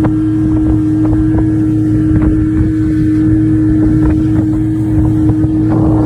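Motorboat engine running steadily at a constant pitch, with wind buffeting the microphone.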